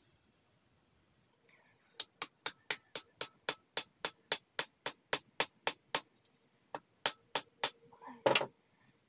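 Small hammer tapping on a steel tomahawk head on its ash handle, each blow ringing. About four blows a second for several seconds, a pause, a short run of three or four more, then one heavier knock near the end.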